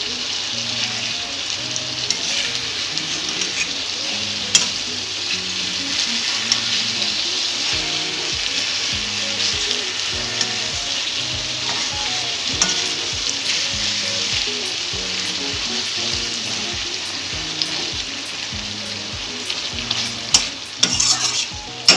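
Pieces of katla fish frying in oil in a wok, sizzling steadily while a metal spatula turns them over, with occasional scrapes and taps of the spatula against the pan and a few sharper knocks near the end.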